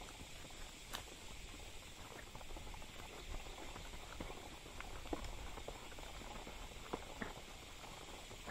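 A horse walking on a wooded dirt trail: scattered, irregular light hoof clicks and crunches on leaves and twigs over a faint hiss.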